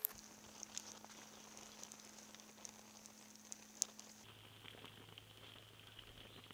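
Faint crackling of a small fire of dry sticks and straw, with a few sharp pops, over a steady low hum.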